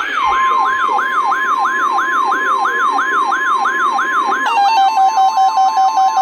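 Emergency alert tones. An electronic siren yelps, its pitch sweeping upward about three times a second, and a steady high tone joins just after the start. About four and a half seconds in, the sweeping changes to a rapid two-note warble under the steady tone.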